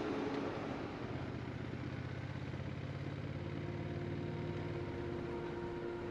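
Honda Rebel 1100's parallel-twin motorcycle engine idling steadily, with a low, evenly pulsing note that fades out near the end.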